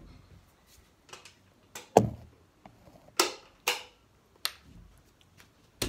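Handling noise: scattered knocks, clicks and brushing swishes as a phone is carried and handled, with a sharp knock about two seconds in and a louder thump right at the end.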